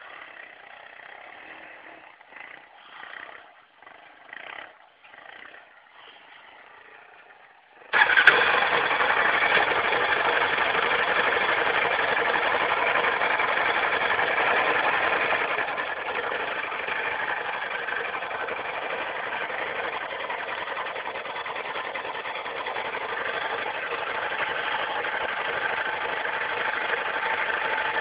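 Yamaha Raptor ATV engine revving faintly in uneven bursts over a cell-phone microphone. About eight seconds in, a sudden loud, steady rushing noise starts and runs on, covering the engine.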